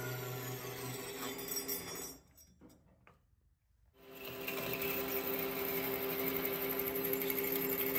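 Metal lathe running with a steady machine hum while parting a ring off a steel Subaru 4EAT transmission top shaft. The sound cuts out for about two seconds in the middle, then returns with more cutting hiss.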